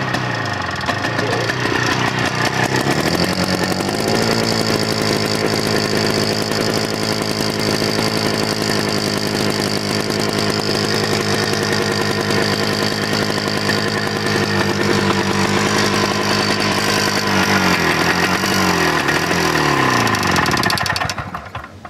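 Fan-cooled 250 cc two-stroke engine of a 1957 IRUS U54/II single-axle tractor running. It speeds up a few seconds in and holds a steady speed. Near the end it slows and dies away, stopped by shorting the ignition wire to metal.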